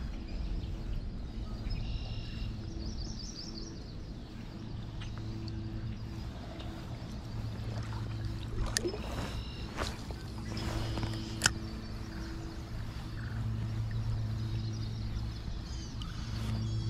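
A low hum with a few even overtones that starts and stops in stretches of one to three seconds. Brief high chirps come near the start, and a few sharp clicks fall in the middle, the loudest a snap about eleven seconds in.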